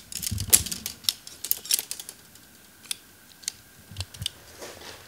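A dome tent being put up: a quick run of sharp clicks and light rattles from the tent poles being handled and fitted together, thinning to a few scattered clicks after about two seconds.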